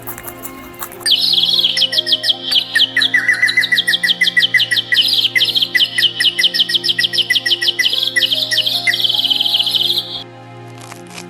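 A bird chirping rapidly and continuously, short high chirps at about six or seven a second, starting about a second in and stopping near the end, over a steady background music drone.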